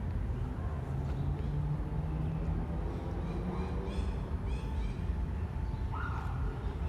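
A few short, harsh bird calls over a steady low rumble of city traffic.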